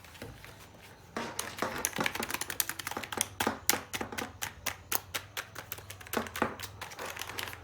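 Keys of a Jedel gaming keyboard being pressed in quick succession: a fast, irregular run of clicks starting about a second in.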